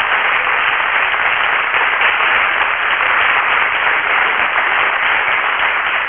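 Audience applause, a dense steady clapping that holds at one level.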